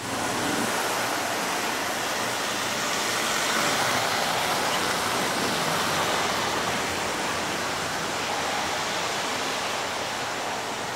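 Lionel O gauge model train running on its three-rail metal track: a steady whir of wheels and electric motor.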